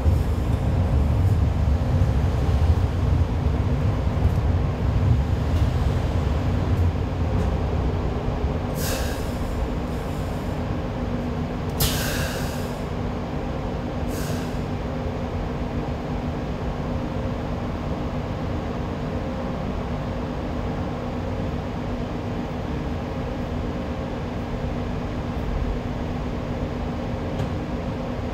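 Kawasaki-built Hong Kong Light Rail car rumbling along the track for about eight seconds, then dying down to a quieter steady hum as the car slows, with three short sharp hisses a few seconds apart.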